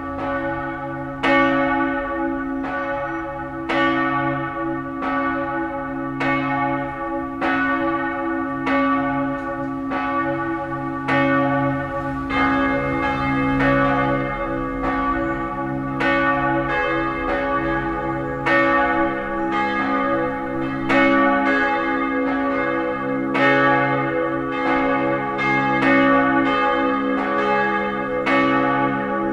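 The five-bell ring of St. Adalbero church, tuned D-flat, E-flat, G-flat, A-flat and B-flat, ringing. The strokes come one after another and overlap in a continuous peal, and the sound grows fuller about twelve seconds in.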